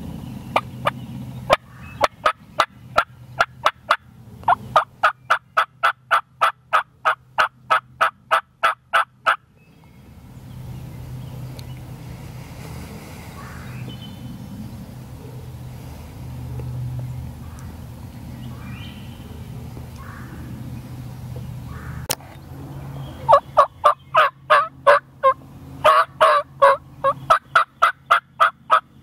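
Wild turkey calling: a long run of evenly paced short notes, about four a second, for the first nine seconds or so, then a second, louder run near the end.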